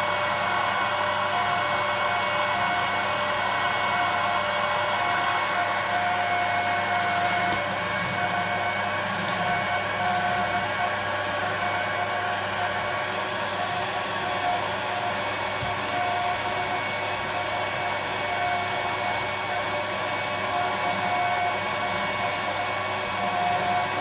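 1988 Goblin Solo 302A cylinder vacuum cleaner running steadily with a steady whine while its floor nozzle is worked back and forth over carpet.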